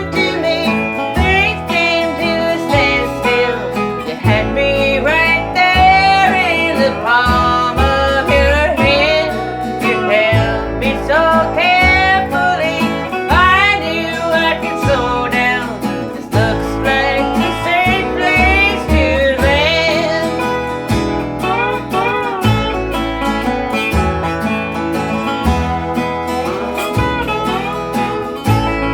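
Instrumental break in a country-style song: acoustic guitar under a lead melody of sliding, wavering notes, over a steady bass line.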